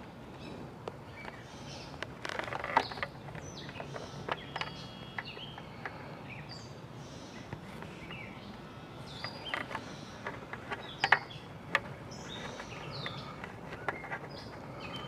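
Birds chirping in the background while hands handle a plastic motorcycle helmet, with scattered sharp clicks and rustles from the shell and padding, the loudest clicks about three and eleven seconds in.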